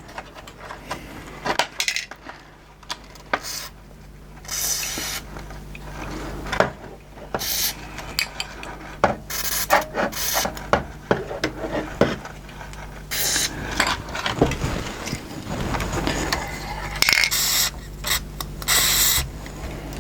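Irregular rubbing and scraping with small plastic-and-metal clicks and knocks as a VCR's loading mechanism is handled while being greased, over a low steady hum.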